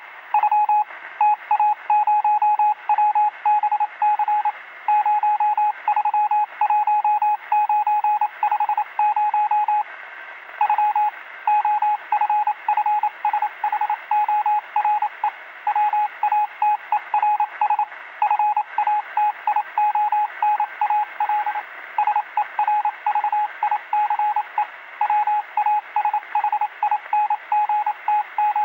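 Morse code received over a walkie-talkie: a single steady beep keyed on and off in short and long pulses, heard through the radio's narrow, hissy speaker sound with steady static behind it.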